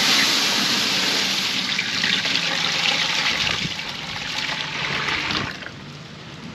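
Milk being poured into a cooking pot: a steady rushing pour that starts suddenly and eases off about five seconds in.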